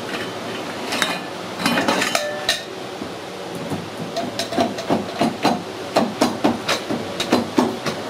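Aluminium washing-machine motor housings clinking and ringing as they are handled, then a run of about ten sharp taps, roughly three a second, as the end housing is knocked down over the wound stator on a press. A steady hiss of workshop noise sits underneath.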